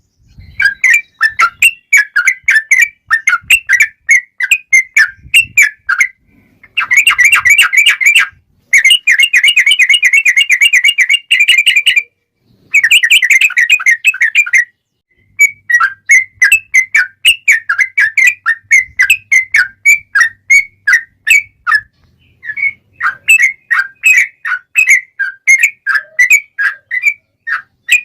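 Yellow-vented bulbul (trucukan) singing: a fast string of sharp chattering notes, broken in the first half by three long rapid rolling trills (a long 'ropel') of two to three seconds each.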